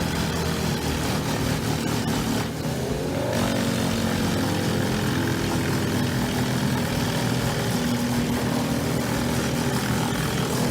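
Large engine running steadily under load; about two and a half seconds in it briefly drops off, then picks up again with a rising pitch.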